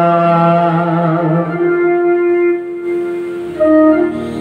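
Devotional bhajan: a man's voice holds a long sung note over steady instrumental accompaniment and drops out about a second and a half in. The instrument carries on alone, and about three and a half seconds in a louder keyboard melody comes in.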